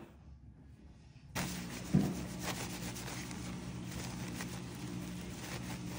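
Faint rubbing and light handling as a surface is wiped clean, with scattered small clicks over a steady low hum, starting about a second and a half in after near silence.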